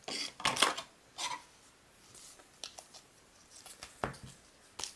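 Foil Pokémon booster packs being handled and shuffled: short crinkles and rustles of the wrappers, busiest in the first second or so, then scattered light clicks and a soft knock about four seconds in.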